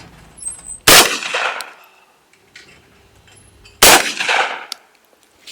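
Over-and-under shotgun firing twice at skeet targets, two loud shots about three seconds apart, each with a short echo trailing off.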